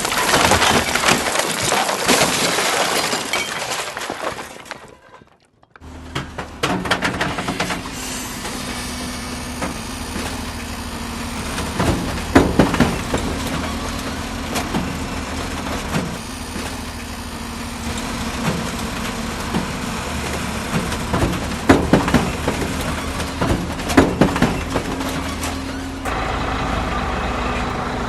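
A loud rushing, crashing noise for the first few seconds fades out. A steady engine hum of construction machinery follows, with scattered knocks and clanks.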